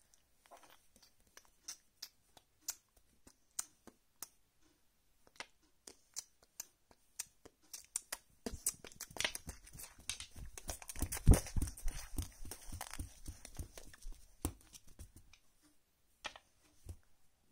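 Handling noise: scattered light clicks and taps, then several seconds of dense rustling and scraping with one loud thump about eleven seconds in, then more sparse clicks.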